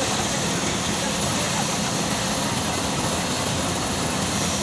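Diesel engines of heavy road-paving machinery running steadily, a constant drone with no breaks.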